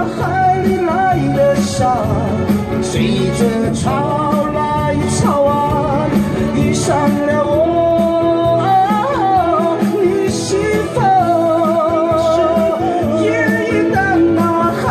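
A singer's voice with instrumental accompaniment, holding long notes with vibrato.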